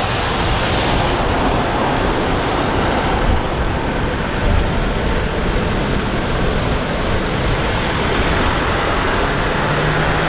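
Road traffic: cars driving past close by, a steady rush of engine and tyre noise.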